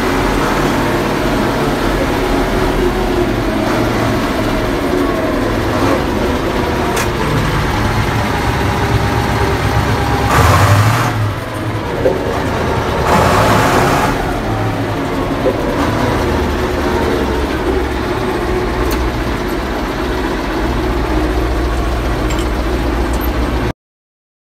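Massey Ferguson 1155's V8 diesel engine running steadily while the tractor is driven, heard from inside the cab, with two brief louder rushes about ten and thirteen seconds in. The sound cuts off abruptly near the end.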